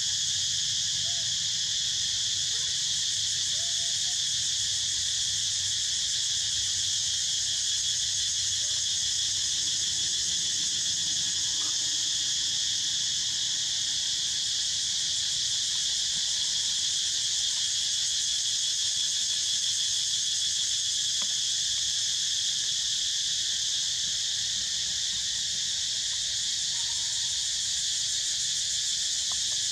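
Dense insect chorus: a steady, high-pitched buzzing drone with no break.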